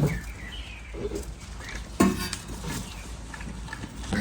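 Dogs gnawing on meaty bones: scattered crunches and clicks of teeth on bone, with one sharp knock about two seconds in.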